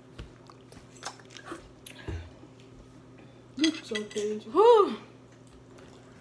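Faint clinks and taps of cutlery and dishes at a meal, then, about three and a half seconds in, a short wordless voice sound from someone at the table, its pitch rising and then falling.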